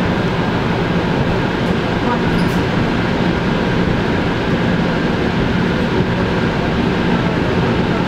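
Electric train running at speed, heard from inside the carriage: a steady rumble and rush of wheels on rail with a faint steady hum.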